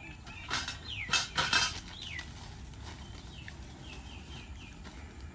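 High bird calls sliding down in pitch, repeated, with a quick run of short peeps near the end. A few brief rustling noises, about a second in, are the loudest sounds.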